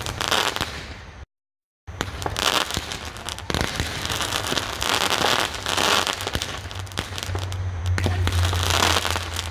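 A 200-gram consumer comet cake firing shot after shot: sharp launch reports, each followed by dense crackling from the crackling comet tails. The sound cuts out completely for about half a second a little over a second in.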